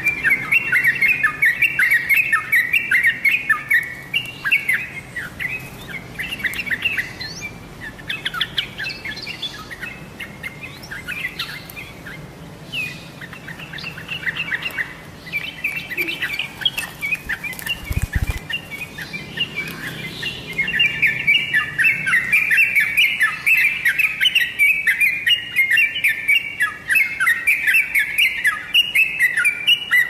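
Yellow-vented bulbul (trucukan) singing a fast, chattering run of bright notes, thick and loud at first, thinning out in the middle and coming back dense and continuous for the last third.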